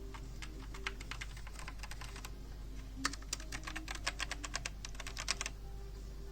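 Typing on a Perixx Periboard 734 mechanical keyboard with linear red switches: two runs of keystrokes with a pause of under a second between them, the second run quicker and denser.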